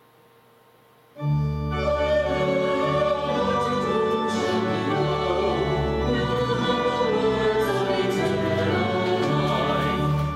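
Organ music with singing starts abruptly about a second in: sustained chords over deep bass notes, with a voice line wavering above.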